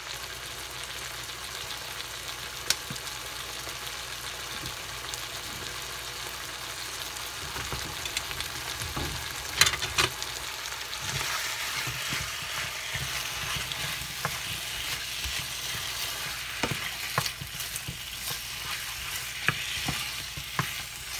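Cubed raw chicken sizzling in hot olive oil in a frying pan, with a steady hiss that grows louder about halfway through. A few sharp knocks come in between, and near the end a wooden spoon knocks and scrapes against the pan as the pieces are stirred.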